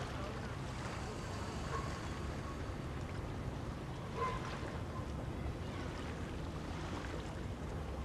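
Wind noise on the microphone over a steady low hum, with a faint short higher sound about four seconds in.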